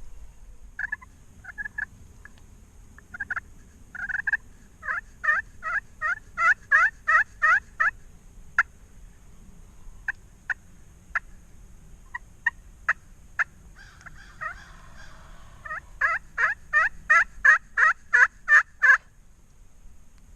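Turkey yelping: sharp, short, falling notes, a few scattered at first, then a fast run of about four a second, then single notes, then a second loud run near the end.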